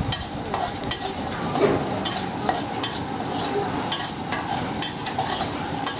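Food sizzling in hot oil in a thin wok while a metal spatula stirs and scrapes the pan, about two strokes a second. The ingredients are being stir-fried with chili flakes until they turn crunchy.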